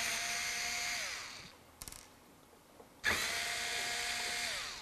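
Cordless drill-driver backing screws out of a metal power-supply end cap. It makes two runs of steady motor whine, each about a second and a half long, and each winds down in pitch as the trigger is released. A small click comes between the two runs.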